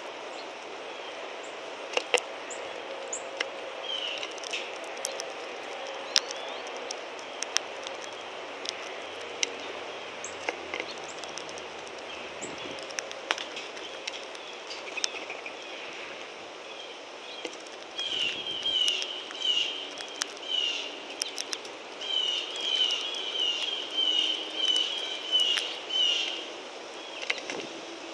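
Sharp, scattered clicks of a northern cardinal cracking sunflower seeds on a feeder board close by, over steady outdoor background noise. From about two-thirds of the way through, a songbird repeats quick high chirping notes in short runs.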